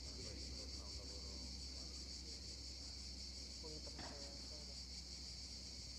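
Steady, high-pitched buzzing drone of cicadas in the surrounding trees, with faint voices in the background.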